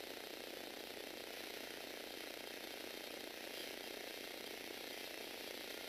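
Lego Technic 8043 motorized excavator's small electric motors and plastic gear trains running steadily as the boom and bucket arm move, an even mechanical whirring of gears.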